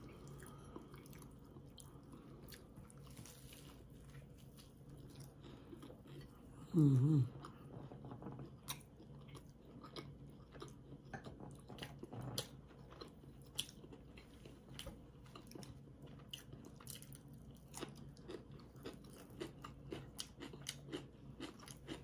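Close-up chewing of food, with scattered soft clicks, and one short hummed "mm" about seven seconds in.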